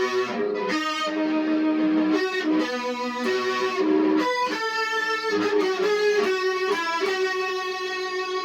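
Electric guitar played through an amplifier: a melodic line of single sustained notes, each note changing about every half second.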